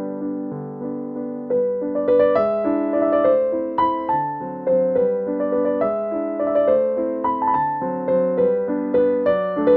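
Background piano music: a gentle melody of struck notes, each left to ring and fade over held chords, growing busier about a second and a half in.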